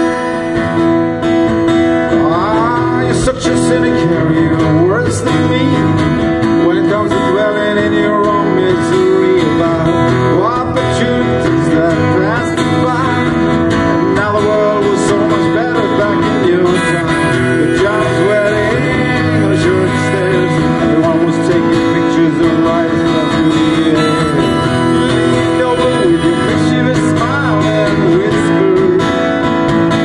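Live amplified music: an acoustic guitar played through PA speakers, with held chords underneath and a man singing over them from about two seconds in.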